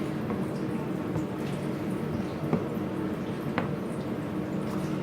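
Battered candy bar frying in a deep fryer: a steady sizzle of hot oil with a couple of sharp pops, the loudest about two and a half seconds in.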